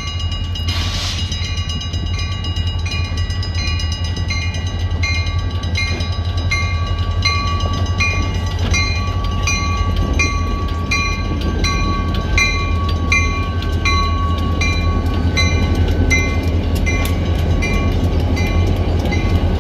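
Freight train led by EMD SD40-series diesel locomotives passing a grade crossing, with a steady deep engine rumble. Over it the crossing bell rings in a steady repeat, a little under twice a second.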